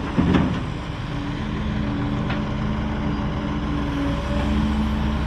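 Heavy diesel machinery running steadily at the loading site, a low engine hum with a held whine over it. A couple of brief knocks come right at the start.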